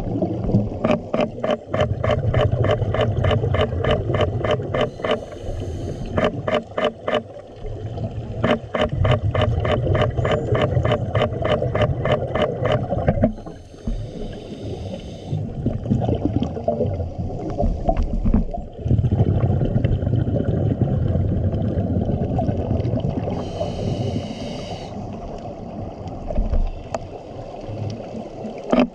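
Underwater sound of a scuba diver breathing through a regulator. Twice there is a short hiss of an inhale, and between them long rumbling gurgles of exhaled bubbles. Through much of it runs a fast, even pulsing of clicks, like a boat's engine and propeller carried through the water.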